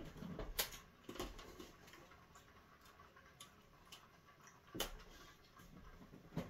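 Faint, irregular clicks and knocks, a few sharp ones standing out about half a second in and just before five seconds in.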